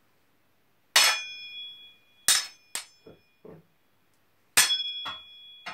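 Two swords struck together in a few clashes: a loud clang about a second in, two quick strikes soon after, then lighter knocks and a second loud clang near the end. The loud hits leave the blades ringing with a clear metallic tone that lingers for a second or more.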